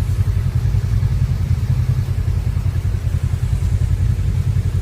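Off-road vehicle engine running steadily: a low rumble with a fast, even pulsing beat.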